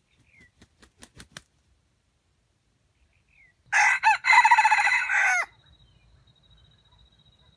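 Red junglefowl rooster beating its wings in a quick run of claps, then crowing once, a short crow of under two seconds that starts a little past halfway.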